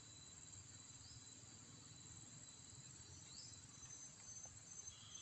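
Near silence outdoors, with faint insects: a steady high-pitched drone and a short rising chirp every two seconds or so.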